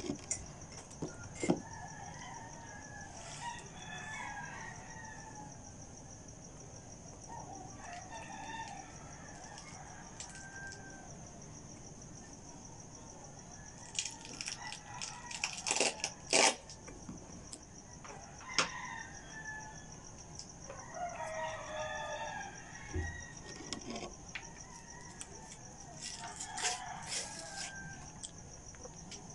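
Roosters crowing repeatedly at a distance, each crow lasting a second or two, over a steady high-pitched trill. A few sharp clicks and knocks come around the middle and again near the end.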